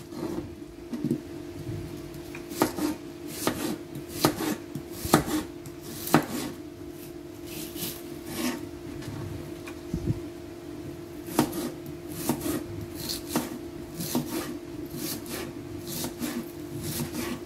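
Kitchen knife slicing and chopping a small onion on a plastic cutting board, a string of irregular sharp taps as the blade meets the board. A steady low hum runs underneath.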